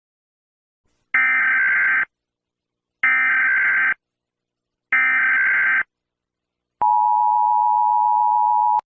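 Emergency Alert System header: three identical bursts of warbling, buzzy data tones about a second apart, then, about seven seconds in, the steady two-tone attention signal, which holds for about two seconds and cuts off suddenly.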